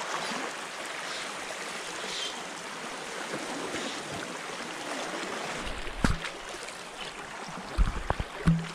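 Shallow seawater washing and lapping steadily along the shore. A sharp low knock comes about six seconds in, and a few low thumps follow near the end.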